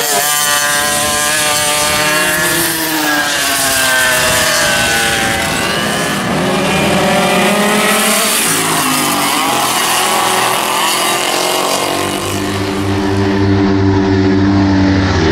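Several vintage racing go-kart two-stroke engines running hard as the karts pass, their pitches rising and falling and overlapping. A lower, steadier engine note comes to the fore near the end.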